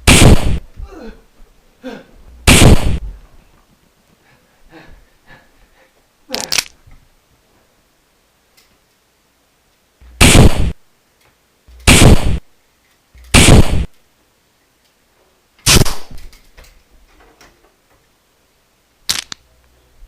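Gunshot sound effects: about eight single loud bangs, spaced irregularly one to four seconds apart, each with a short fading tail.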